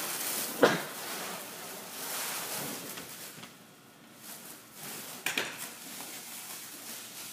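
Handling noise from roping a pallet load of CRT monitors: a sharp knock about half a second in and a second knock about five seconds in, with rustling and scraping between.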